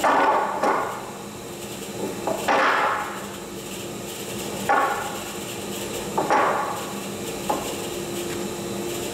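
Planed tulipwood boards knocking against each other and on a cast-iron saw table as they are handled, a handful of separate knocks a second or two apart, over a faint steady machine hum.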